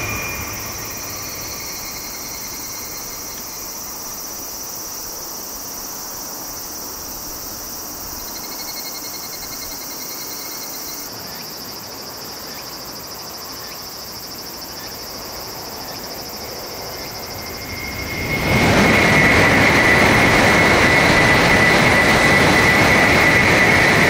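Tokaido Shinkansen high-speed train passing at speed on a viaduct: a loud, even rushing noise with a steady high tone rises suddenly about three quarters of the way in and holds to the end. Before it, only steady high-pitched insect calls from the surrounding trees.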